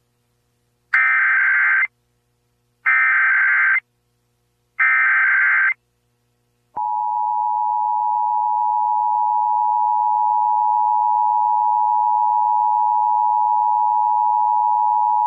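Emergency Alert System test broadcast: three one-second bursts of SAME header data tones about a second apart, then the EAS two-tone attention signal held steady for about eight and a half seconds. Together they open a Required Monthly Test of the alert system.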